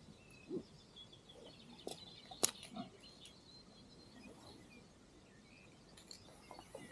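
Quiet outdoor ambience: faint bird chirps and a thin high call, with scattered small clicks and knocks and one sharper click about two and a half seconds in.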